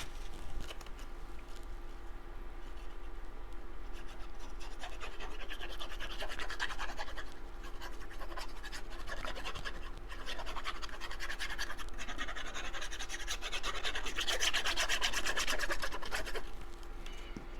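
Cardstock paper pieces being handled and rubbed by hand, a scratchy rustle that swells and fades and is loudest near the end, over a faint steady hum.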